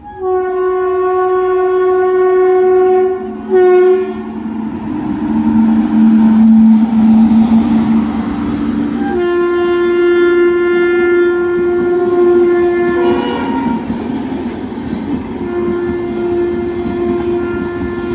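Horn of the August Kranti Tejas Rajdhani Express, sounded in long held blasts: one of about three seconds, a short toot, a stretch on a lower note, then two more long blasts. Under the horn the passenger coaches run past with a steady rumble and clatter of wheels on rail.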